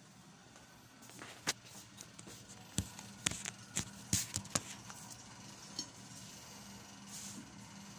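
Short clinks and knocks of a glass coffee carafe and its lid being handled, a scattering of sharp taps from about one to five seconds in, over a faint steady hum.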